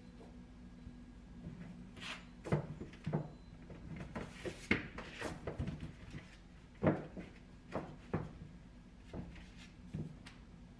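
Paperback books being set down, shifted and straightened on a wall-mounted book stack: a run of soft knocks and taps with light paper scuffs, the strongest knock about two-thirds of the way through.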